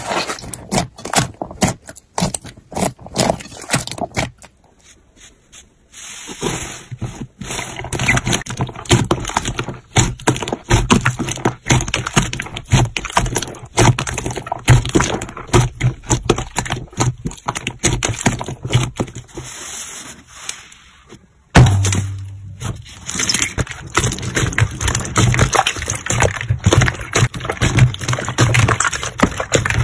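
Slime being squeezed, poked and pressed by hand, giving dense runs of sticky clicks, pops and squelches. The texture changes abruptly a few times as one batch of slime gives way to another.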